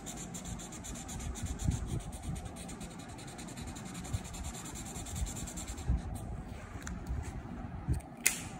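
Deli sketch marker's tip rubbing back and forth on paper in quick, even strokes as an area is coloured in. The strokes stop about six seconds in, giving way to a few light knocks and a sharp click near the end.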